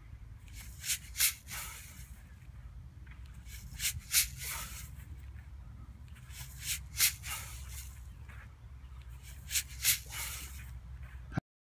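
A person doing a repeated lunge-and-swing exercise with a ball on grass: about every three seconds a cluster of two or three short swishing, rustling sounds, four reps in all, over a low steady rumble. The sound cuts out briefly near the end.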